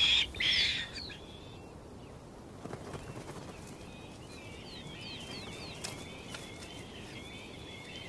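Caracaras calling: a loud high call in the first second, then quieter short, high chirps repeating through the rest.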